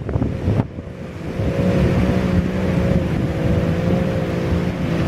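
Jet ski engine running steadily, a droning hum with a slight waver in pitch that sets in about a second in. Wind buffets the microphone at the start, with surf underneath.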